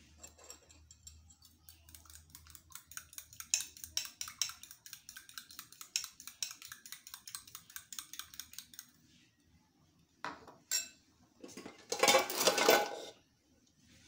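Fork beating eggs in a ceramic bowl: quick, regular clicks of metal on the bowl that stop about nine seconds in. Near the end come two single knocks and then a louder clatter lasting about a second.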